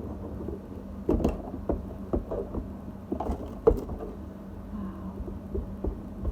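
Irregular taps and knocks of Play-Doh toys and plastic tools being handled on a table, over a steady low hum.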